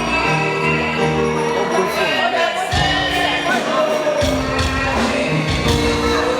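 Music with sustained keyboard-like chords over a moving bass line and a light, regular jingling percussion beat.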